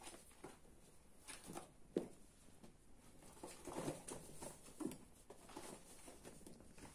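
Ragdoll kittens play-fighting on a fabric sheet over carpet: faint scuffling and pattering of paws with rustling of the fabric, and a soft knock about two seconds in.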